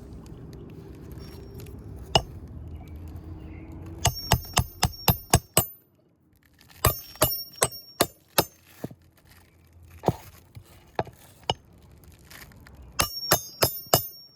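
Hammer driving a roofing nail through a shingle: quick metal-on-metal strikes with a high ring, in several runs of about six or seven blows.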